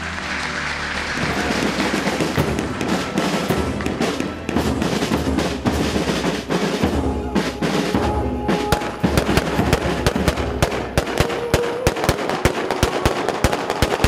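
Marching band drums beating a steady rhythm, with many sharp cracks and bangs over them, densest in the first half.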